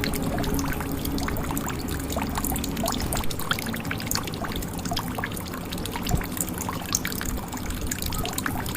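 Water dripping and trickling into a jug: many small, irregular drops and splashes over a steady watery hiss.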